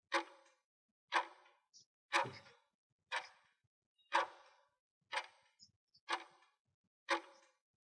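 Countdown-timer sound effect: a short, sharp clock-like tick once a second, eight ticks in all, counting down the seconds left to answer.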